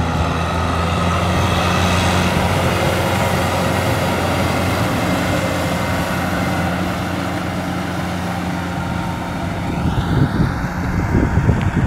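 Kubota M6040 SU tractor's diesel engine running steadily as it ploughs a paddy field. Near the end the sound turns to an uneven, gusty rumble.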